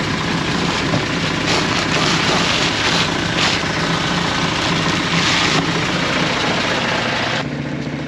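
Air compressor running steadily, charged to about 155 psi, while compressed air hisses loudly through an air-driven dryer-vent cleaning snake, surging a few times. The air cuts off suddenly near the end, leaving the compressor's hum.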